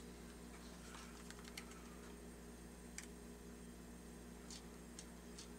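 Faint, scattered clicks and taps of small plastic parts being handled, over a steady low hum.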